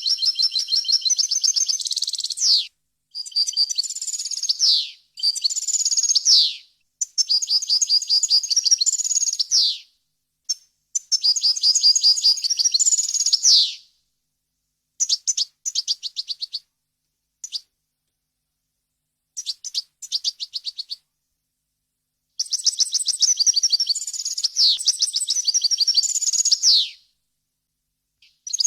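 European goldfinch singing: bursts of rapid, high twittering and buzzy trills with quick downward-sliding notes, each phrase a second or three long, broken by short pauses and a few longer gaps past the middle.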